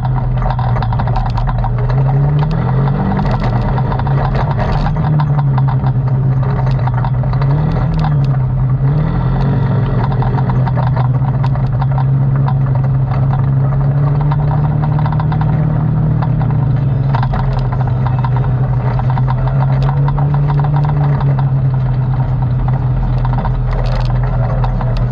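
ATV engine running while under way. Its pitch rises and falls briefly with the throttle a few times in the first ten seconds, then holds steady.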